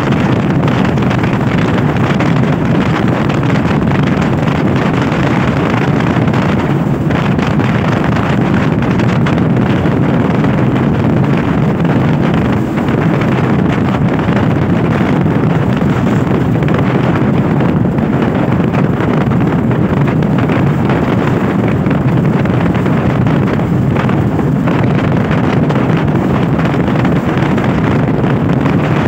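Steady wind rush on the microphone of a motorcycle riding at road speed, with the bike's running noise beneath it.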